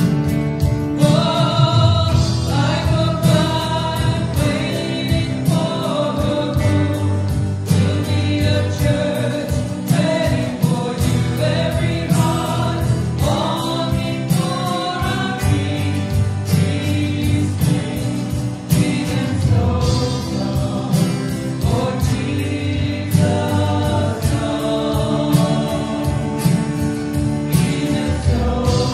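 Worship song: voices singing the lyrics with instrumental backing.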